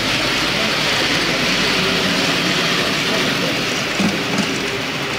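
A model passenger train running past on the layout's track: a steady rushing of wheels and motor that swells and then eases off near the end. Voices murmur faintly in the background.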